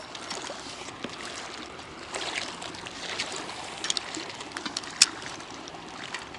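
Small waves lapping and splashing against a concrete shoreline, with scattered light clicks and one sharp click about five seconds in.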